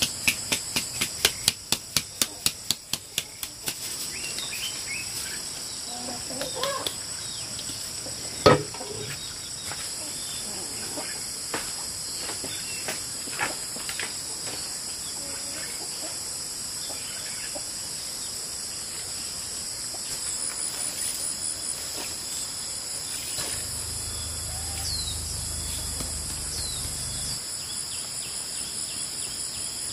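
Crickets or other insects chirping steadily in several high-pitched bands. Over them, a fast run of knocks at about four a second fills the first few seconds, and a single sharp knock comes about eight seconds in.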